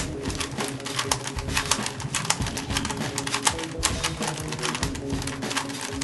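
A Rubik's Cube being turned as fast as possible: its plastic layers clicking in a rapid, continuous rattle of turns.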